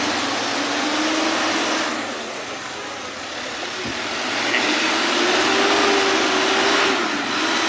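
Isuzu light truck's diesel engine running as the truck creeps forward at low speed. The engine note climbs about halfway through and drops back near the end.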